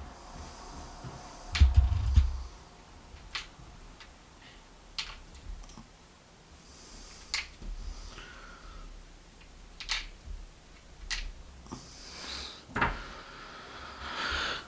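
Scattered sharp clicks and light taps of small lock pins being tipped out of a dimple euro cylinder's plug, with a dull knock about two seconds in as the lock is handled.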